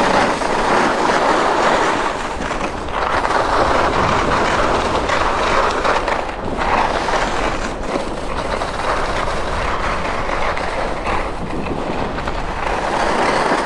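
Skis sliding and carving down a groomed piste: a steady, loud rushing scrape, with wind on the microphone.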